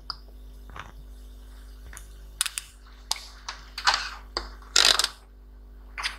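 Scattered light clicks and short scrapes of multimeter probe tips being set on and moved across a laptop motherboard, over a faint steady electrical hum.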